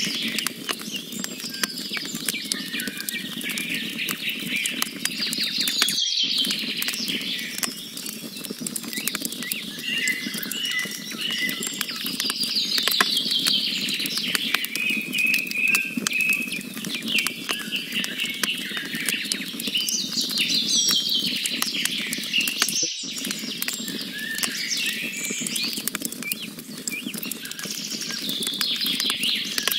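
Wood campfire crackling steadily with dense pops and snaps over a low rushing of flame. Songbirds sing repeated trills and chirp series every few seconds above it. The sound cuts out for a split second twice, once about six seconds in and again near twenty-three seconds.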